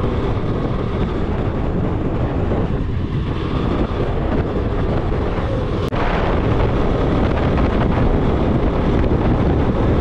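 Motorcycle running at speed with heavy wind rushing over the microphone. A sharp click comes about six seconds in, after which the noise grows a little louder.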